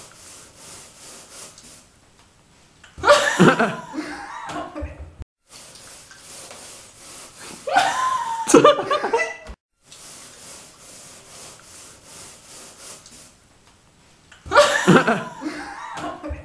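Women laughing loudly in three bursts, about three seconds in, about eight seconds in and near the end, with quieter breathing and chuckling between.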